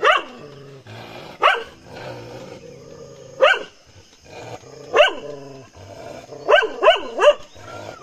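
Village dogs in a standoff barking aggressively: single sharp barks every second or two, each falling in pitch, then a quick run of three near the end, with low growling between them.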